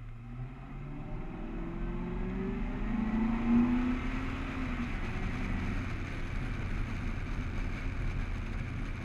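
Car engine accelerating from a standstill, its pitch rising over the first few seconds, then a steady rush of wind and tyre noise as the car runs at speed, picked up by a camera on the hood.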